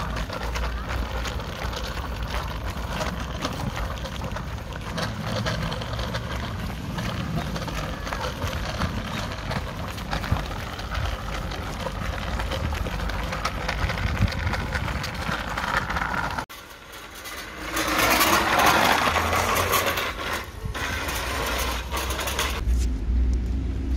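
Steady rumble of small wheels rolling on an asphalt path, first a child's kick scooter and then a child's bicycle with training wheels, mixed with wind on the microphone. The sound drops out suddenly about 16 seconds in, then comes back louder and hissier for a few seconds.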